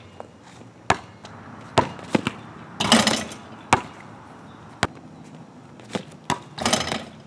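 A basketball bouncing on an asphalt driveway and hitting the hoop: a string of sharp, separate thuds at uneven intervals, with two longer, noisier crashes about three seconds and six and a half seconds in.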